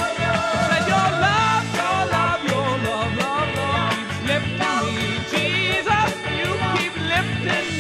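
Upbeat 1970s rock band music with a steady drum beat, bass and guitar, and a wavering lead line over it.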